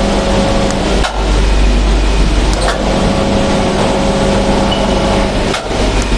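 Loud, steady machinery noise in a heavy-fabrication workshop, with a steady electric motor hum that drops out and returns. The noise breaks off briefly about a second in and again near the end.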